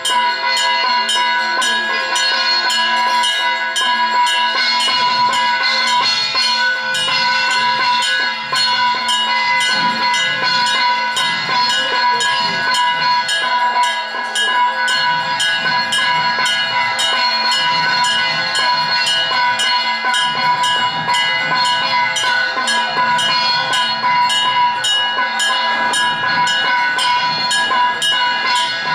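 Temple bells ringing fast and without a break during puja, a quick even run of strokes with a steady ringing tone, over an irregular low drumbeat.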